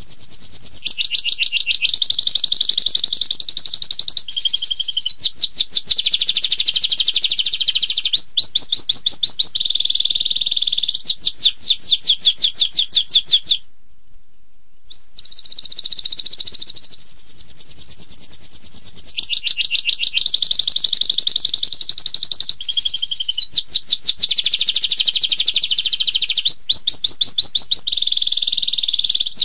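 Domestic canary singing a long, loud song. It alternates sustained rolling phrases with rapid-fire trills, the sharp bursts that Indonesian canary keepers call "tembakan". About halfway through there is a pause of a second or so, then the same series of phrases starts again.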